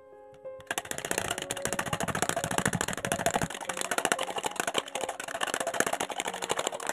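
An egg being beaten by hand in a plastic measuring jug, the utensil clattering rapidly and continuously against the jug's sides. The clattering starts about a second in.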